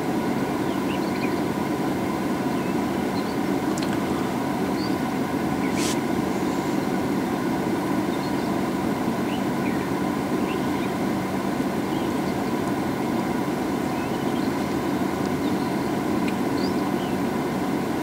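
A vehicle engine idling steadily, a continuous hum with held tones. Faint short high chirps sound now and then above it, and a brief sharp click comes about six seconds in.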